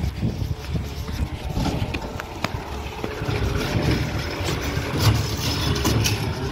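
Peterbilt 520 McNeilus ZR garbage truck's engine running close by, a steady low rumble.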